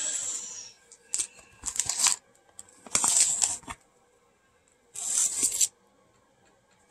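Padded bubble mailer being torn open, in about five short rips and crinkles with pauses between them.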